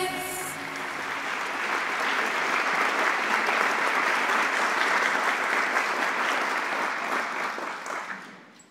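Audience applauding at the end of a group gymnastics routine; the clapping swells over the first couple of seconds and fades out near the end.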